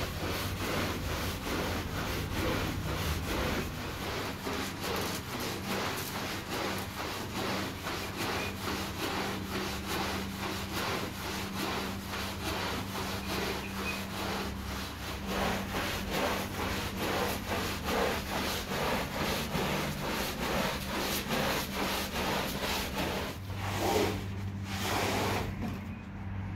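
Stiff-bristled push brush scrubbing a wet, soapy rug in rapid back-and-forth strokes, a steady scratchy rubbing. In the last few seconds this gives way to a few longer sweeps of a rubber squeegee pushing the soapy water across the rug.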